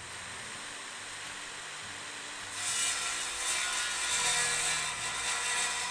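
Wood being worked with a tool for the kitchen shelves: a steady scratchy hiss of cutting or abrading timber that gets louder about two and a half seconds in.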